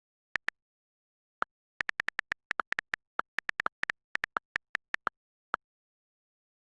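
A quick, irregular run of short, pitched electronic blips at two slightly different pitches, with dead silence between them. A few come early, then a busy cluster of over twenty, and the last one falls about five and a half seconds in.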